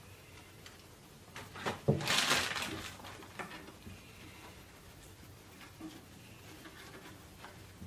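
A small monkey scrambling about inside a wooden wardrobe: a couple of knocks against the wood, then a loud burst of plastic-bag rustling about two seconds in, followed by lighter scattered rustles and taps as it climbs.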